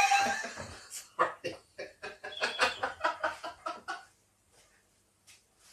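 A man laughing: a loud breathy burst at the start, then a run of short, rapid ha-ha pulses that stops about four seconds in.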